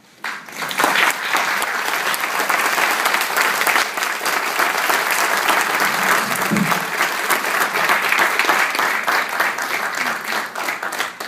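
Audience applauding: many hands clapping, starting abruptly and holding steady for about eleven seconds, then dying away near the end.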